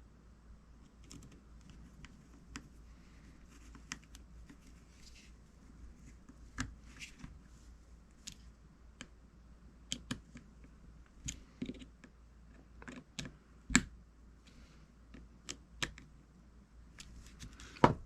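Scattered light clicks and taps of small fishing-reel parts being handled and fitted together during reassembly, with the loudest click about 14 seconds in.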